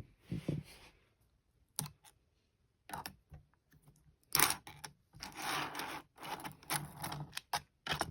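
Light plastic clicks and clatters with short scraping, rustling spells from handling a 3D-printed plastic butterfly knife, its printed handles and screw joints knocking as they swing.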